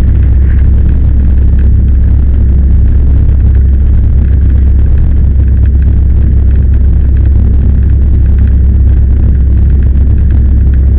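Cessna 172's piston engine and propeller droning steadily, heard from inside the cockpit, with no change in power.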